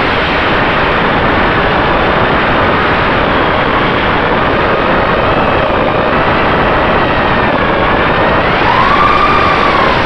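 FPV quadcopter's electric motors and propellers whining over a loud rush of air, as heard from a camera mounted on the drone. The whine's pitch shifts with the throttle and near the end rises and then falls.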